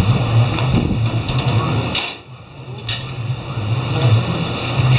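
Chain hoist hauling a boat engine: a steady mechanical drone and rattle from its chain and gearing. It drops away briefly about two seconds in, framed by two sharp clicks.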